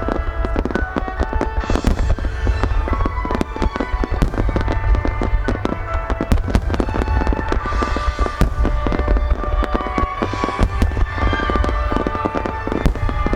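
Fireworks starmine: rapid firework bursts and crackles, many a second, over a continuous low rumble, with music playing throughout.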